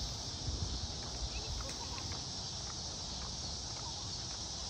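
Steady high-pitched insect chorus in the woods at dusk, over a low rumble with a few soft knocks in the first second or so.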